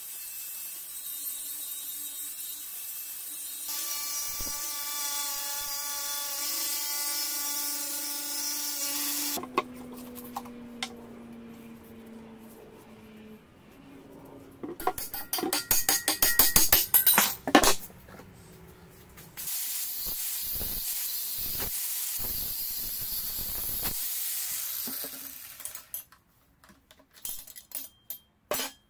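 Angle grinder running against a rusty steel brake disc with a steady whine and hiss, switched off about nine seconds in and winding down with a slowly falling whine. A quick run of sharp knocks follows, then the grinder runs steadily again for about six seconds, with a few scattered knocks near the end.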